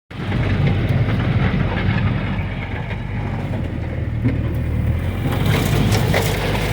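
An old Jeep's engine running under way over rough ground, a steady low rumble; a rushing hiss joins it about five seconds in.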